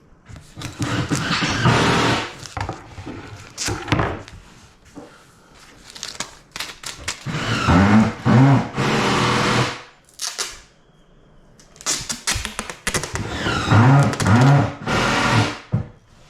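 A power tool running in loud bursts of one to three seconds, its pitch rising and falling under load, with short knocks between the bursts.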